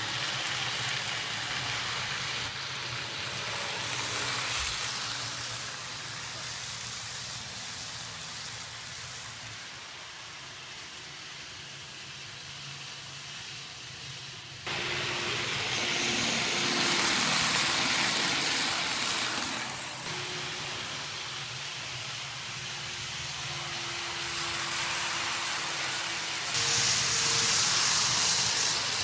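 N-scale model passenger train running on its track: a steady rushing rattle of wheels with a faint motor whine. It jumps louder about halfway through and is loudest near the end as the cars pass close by.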